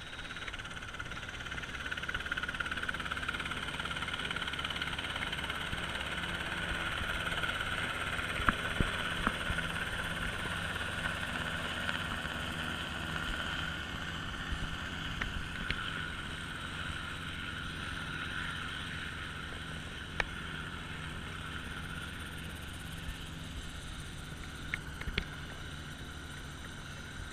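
A helicopter's engine and rotor running steadily, growing louder over the first few seconds and easing off toward the end.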